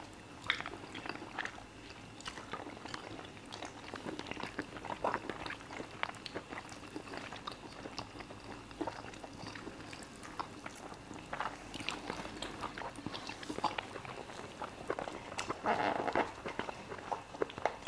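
Quiet eating sounds of two people eating chicken and fufu with their hands: scattered soft chewing, lip smacks and small clicks.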